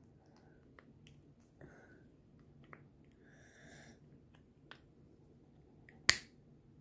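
Small plastic toy pieces handled in the fingers: faint scattered clicks and rustles, with one sharper click about six seconds in.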